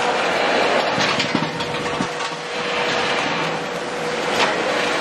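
Factory machinery running: a dense, steady mechanical noise with a constant hum and a few sharp knocks.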